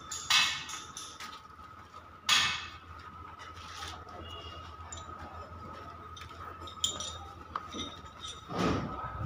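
A few sharp clanks and clinks of metal, one near the start, one about two seconds in and one near the end, with small ticks between, over a faint steady high whine and a low hum.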